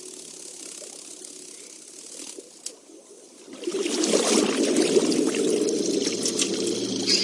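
A steady rushing noise with fine crackle, faint at first, that swells much louder a little past halfway.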